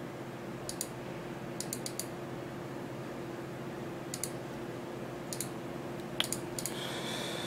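Computer mouse and keyboard clicking in scattered single and quick double clicks, over a steady low hum.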